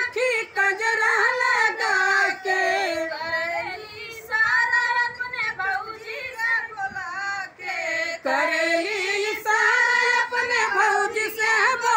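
Several women singing a Bhojpuri wedding folk song together without instruments, with long drawn-out lines and brief pauses between phrases.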